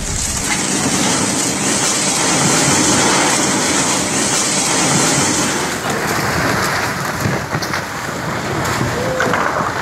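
Loud, dense rushing noise of a flash-flood torrent with buildings and ground collapsing into it. The hiss thins noticeably about six seconds in.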